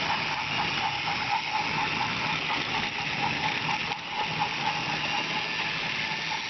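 Battery-powered Trackmaster toy train running along plastic track, its small motor and gears giving a steady whirring hiss with a fast, regular ticking.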